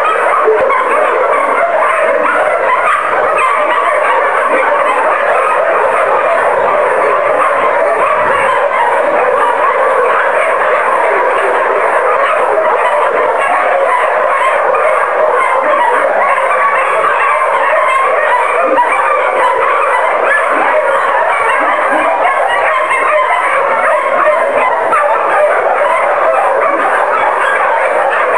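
A continuous din of many dogs barking at once, with no break.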